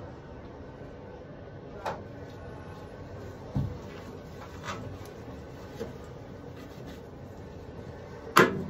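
Gloved hand working the filler cap on an aircraft engine oil tank: a few light clicks and knocks and a dull thump, then a sharp, louder click near the end as the cap is handled.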